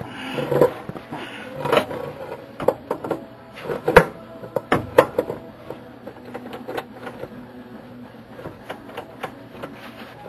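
Scattered metal clinks and knocks from a drive shaft and tools being handled under the truck, with one sharp knock about four seconds in and a few more just after, then only light ticks.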